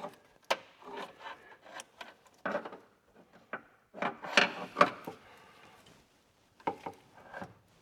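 Hand tools and metal car parts being handled during exhaust manifold removal: irregular clinks, knocks and scraping, with a louder cluster about halfway through.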